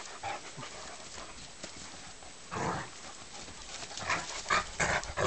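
Two large shaggy dogs rough-playing: scuffling, with a short burst of dog noise about two and a half seconds in and a quick run of short growls near the end, a warning that the play has gone far enough.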